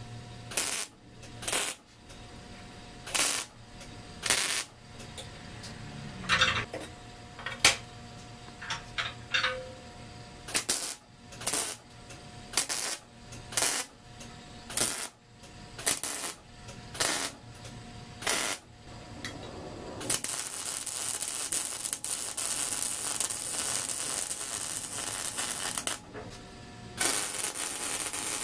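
MIG welder arc crackling and hissing on steel tubing: a run of about fifteen short tack welds, roughly one a second, then two longer continuous beads near the end.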